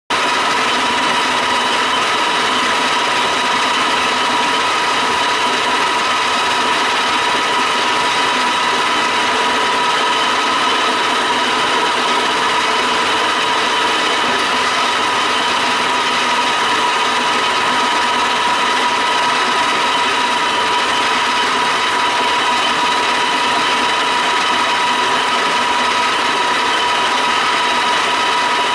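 Q1313 pipe threading lathe running steadily during a threading test: a constant machine hum with a steady whine, unchanging in pitch and level.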